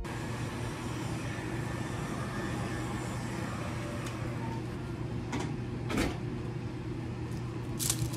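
A steady low hum with a constant hiss, and a few light knocks from handling, about five and six seconds in and again near the end.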